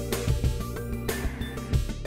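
Background music with held notes and a regular beat.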